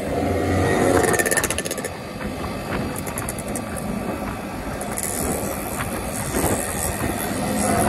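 Sport motorcycle being ridden at steady speed: its engine running along with the rush of wind over the bike-mounted microphone.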